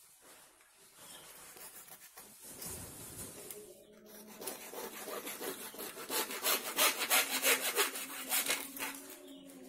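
Hand sawing through PVC pipe with a hacksaw blade: soft scraping at first, then steady back-and-forth strokes about three a second, louder from about halfway in.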